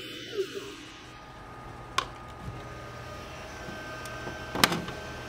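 Glowforge Pro laser cutter with a steady machine hum, a single click about two seconds in, then sharp clacks near the end as its front door is pulled open and folded down.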